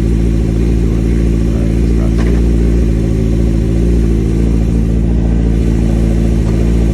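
Suzuki GSX-R750 inline-four engine idling steadily.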